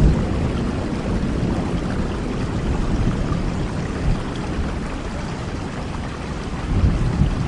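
Heavy rain falling steadily, with low rumbles of thunder swelling at the start, about four seconds in and again near the end.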